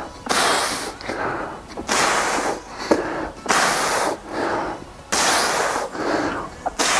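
A man's hard, rhythmic breathing under exertion, loud puffs in and out over and over, from the effort of fast dumbbell bent-over rows.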